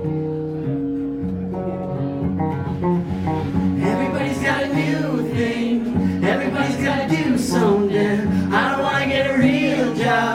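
Live band music: acoustic guitar chords, with a male voice starting to sing about four seconds in.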